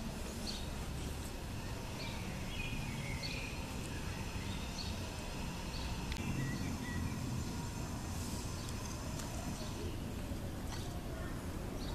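Dog gnawing and mouthing a rubber ball on a rope, with scattered small clicks of teeth on the ball, over a steady low rumble and faint bird chirps.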